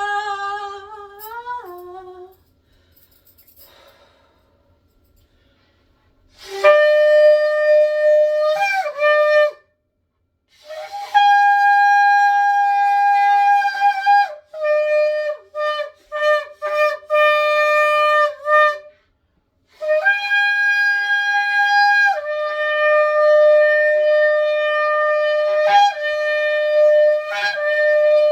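A woman's sung note fades out, and after a short pause a shofar is blown: long held blasts that step from a higher note down to a lower one, a run of short blasts in the middle, and a final long blast lasting about eight seconds.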